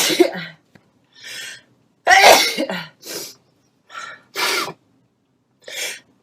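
A woman in a sneezing fit. One sneeze is ending as the sound begins, a loud sneeze comes about two seconds in, and several sharp breaths in follow as the next sneeze builds.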